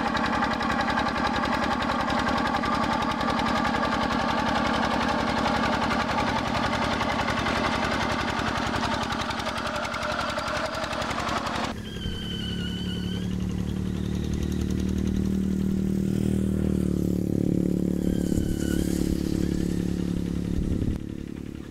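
Diesel engines of two-wheel hand tractors running steadily under load while ploughing a flooded rice paddy. About halfway through, the sound switches abruptly to a second, duller-sounding tractor engine, with a couple of short high chirps over it.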